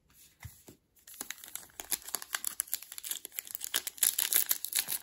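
Wrapper of a 2022 Topps Update hobby pack of baseball cards crinkling as it is handled and opened. The crinkling starts about a second in as a dense run of small crackles and grows louder near the end.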